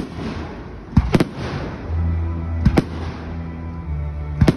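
Aerial fireworks shells bursting: a sharp bang at the start, then bangs in close pairs about every second and a half.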